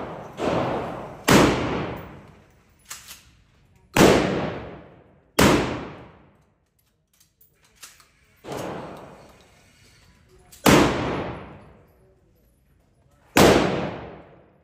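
12-gauge shotgun being fired repeatedly: about five loud blasts a few seconds apart, each trailing off in a long echo from the indoor range, with a few fainter bangs in between.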